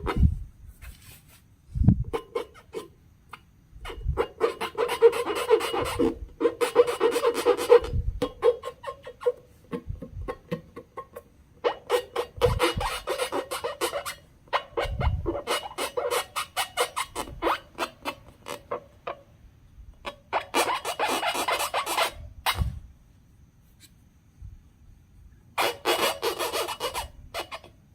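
Slime being squished and mixed by hand, a wet crackling and clicking that comes in several stretches with short pauses between, and a few dull thumps.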